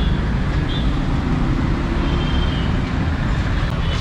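Busy street traffic: a steady rumble of vehicle engines and road noise, with a few faint short tones over it.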